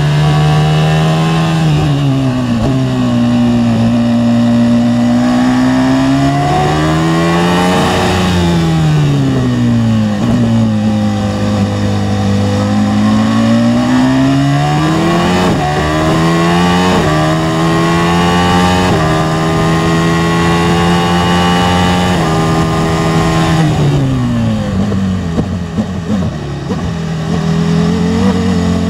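Onboard sound of a Benetton B198 Formula One car's engine at high revs. The pitch falls under braking and climbs again under acceleration several times, with quick gear changes stepping it about halfway through. Near the end it falls away into a rough, uneven stretch as the car slows for a corner.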